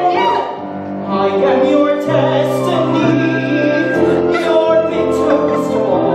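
Stage singing in an operatic style over instrumental accompaniment, with held notes and clear sung consonants.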